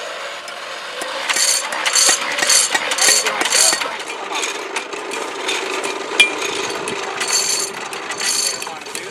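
Metal scraping on hot steel in rhythmic strokes, about two a second, five in a row early and two more near the end, over a steady low hum.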